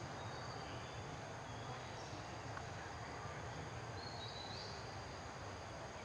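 Forest ambience: a steady, high-pitched drone of insects, with a few faint short chirps about four seconds in, over a low, even background rumble.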